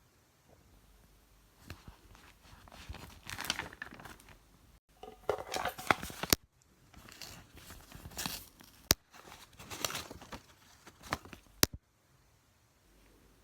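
Paper being crinkled and torn in bursts as handmade paper surprise packets are opened, with a few single sharp clicks in between.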